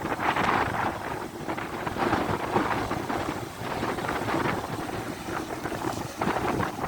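Rough sea surf washing in under heavy wind buffeting the microphone, a continuous rushing noise that surges and eases every second or so.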